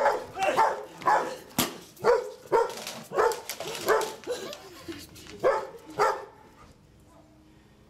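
A dog barking repeatedly, about ten short barks in quick succession, stopping about six seconds in. A sharp knock sounds among the barks about a second and a half in.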